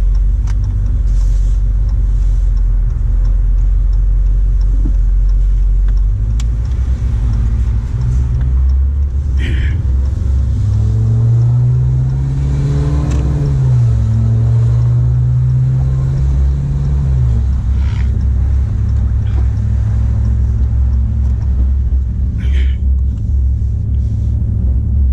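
2016 Dodge Charger Hellcat's supercharged V8 running as the car drives, a steady low drone. From about eight seconds in the engine note rises, dips briefly, holds, then falls back about seventeen seconds in, as the car pulls away under light throttle.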